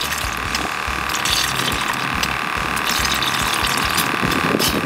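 Steady hiss and bubbling from the oxygen line aerating a bucket of live minnows, dotted with small ticks and splashes as a bottle of dye is squeezed into the water.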